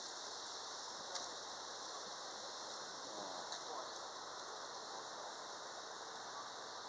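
Steady wash of pool water moving against a camera held at the waterline as it is carried through the pool, with one faint click about a second in.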